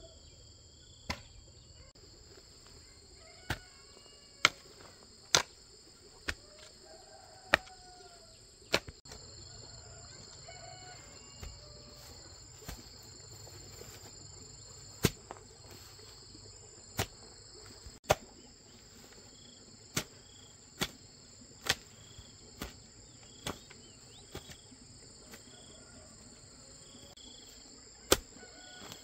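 Steady high-pitched insect chorus with scattered bird chirps, broken by sharp knocks at irregular intervals of one to three seconds. The knocks are the loudest sounds, some much louder than others.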